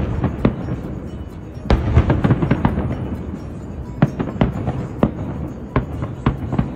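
Fireworks exploding: a run of sharp bangs and crackles over a low rumble, thickest about two seconds in and again around four to six seconds, with music playing underneath.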